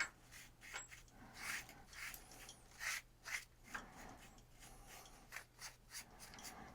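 A hand brush sweeping debris off a machine table in a run of faint, irregular scratchy strokes.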